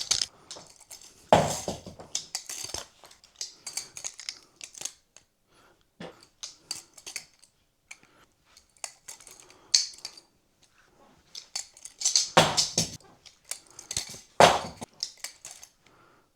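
Blunt balisong (butterfly knife) being flipped. Its metal handles and blade clack and click against each other in irregular runs, with a few louder clacks about a second and a half in and twice near the end.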